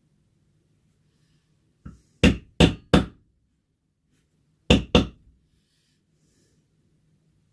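Mallet striking a basket weave stamping tool into wetted leather: a light tap, then three hard blows in quick succession and, after a pause of about a second and a half, two more.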